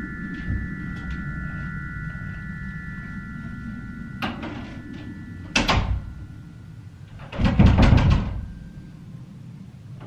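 Door sounds as someone comes into a room: a thud and a sharp knock about five and a half seconds in, then a quick rattling run of knocks a couple of seconds later, the loudest sound.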